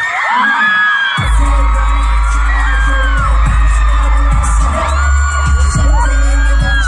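Live K-pop dance track over a concert PA with a heavy bass beat and sung vocals; the bass drops out at the start and the beat comes back in about a second in. Fans scream over the music.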